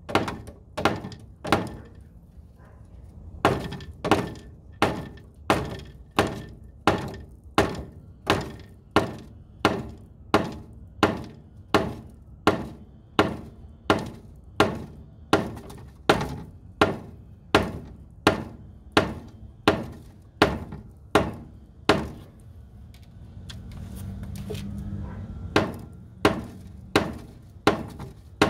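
Steady, evenly paced mallet blows, about three every two seconds, driving a 4-inch black ABS sewer pipe into an old collapsing Orangeburg sewer pipe. The blows pause briefly about two seconds in and again for a few seconds near the end.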